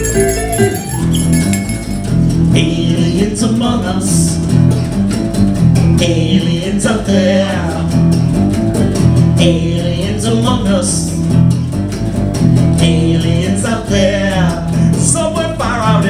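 Live band playing an instrumental break: electric guitar and electric bass guitar.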